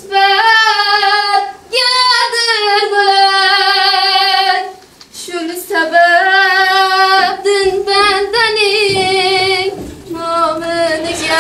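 A woman singing solo, long held notes with a wavering vibrato, in three or four phrases broken by short breaths.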